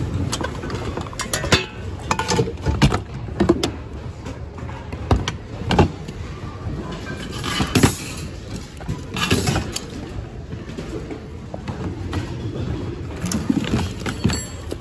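Household goods clattering and rustling as a bin of mixed thrift items is rummaged through by hand: irregular knocks of pots, plastic and a wire rack against each other.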